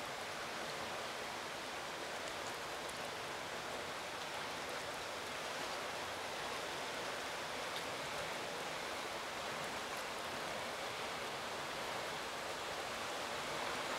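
Steady rushing of fast-flowing water from the swollen, rain-fed reservoir: an even hiss with no separate events.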